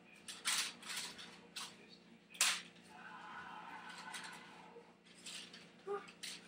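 Toy lightsaber being swung about: a series of short swishing whooshes, the loudest about two and a half seconds in.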